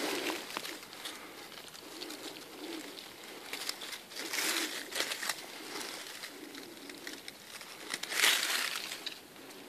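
Dry fallen leaves and forest-floor litter rustling and crackling as a hand brushes them aside. It comes in several bursts, the loudest near the end.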